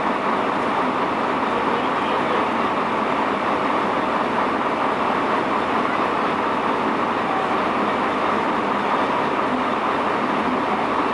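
Steady engine and cab noise heard from inside a truck cab as it creeps along at low speed.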